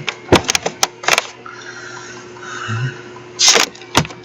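Irregular sharp clicks and knocks, several close together in the first second and a few more near the end, over a steady low hum.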